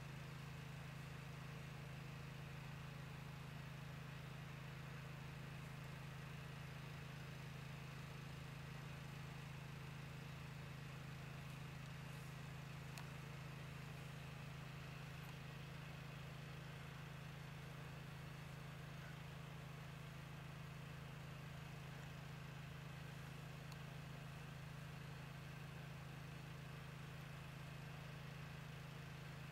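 Steady low hum that never changes in pitch or level, over a faint hiss, with a few faint clicks about halfway through.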